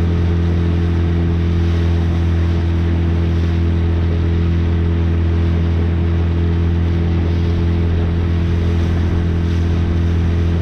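Outboard motor pushing a small skiff at a steady cruising speed: a constant engine drone that holds one pitch, over the hiss of water and wind.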